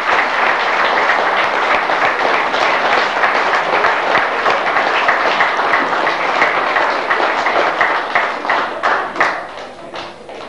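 Audience applauding, thinning out near the end to a few scattered claps.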